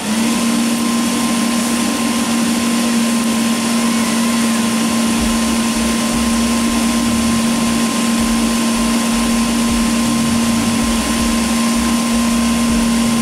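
A forge blower fan switches on and runs steadily, forcing air into the charcoal fire with a loud, even hum. A low rumble joins it about five seconds in.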